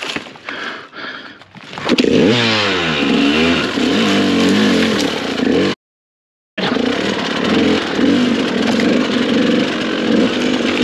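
Light rattling and scraping of a dirt bike being handled. About two seconds in its engine catches, revving up and down, then runs hard under load as the bike climbs a rocky slope. There is a brief gap in the sound just before the middle.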